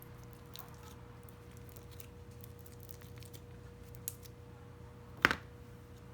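Slime being handled and pressed, giving faint scattered clicks and crackles, a small click about four seconds in and one sharp click about five seconds in, over a low steady background hum.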